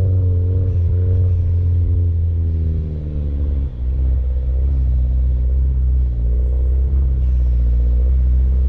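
Mini Cooper Countryman All4's engine running under load on an off-road track; about three and a half seconds in the engine note drops and the level dips briefly, as when the driver lifts off or shifts, then it carries on at a steady lower pitch.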